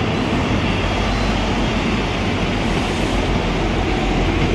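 South West Trains Class 158 and Class 159 diesel multiple units drawing into the platform, a steady noise of diesel engines and wheels on the rails.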